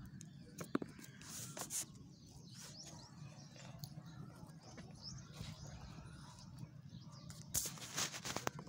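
Faint bird chirps over a low steady background, with a few sharp knocks about a second in and a cluster of clicks and rustling near the end.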